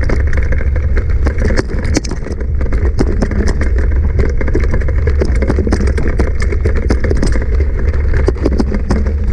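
Mountain bike riding over rough, rocky ground: a steady low rumble, with a dense run of clicks, knocks and rattles from the bike and its tyres on the stones.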